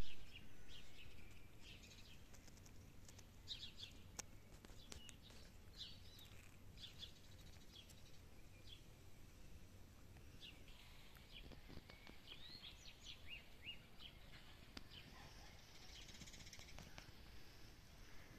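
Several songbirds chirping and trilling, faint and scattered, over a low steady background rumble.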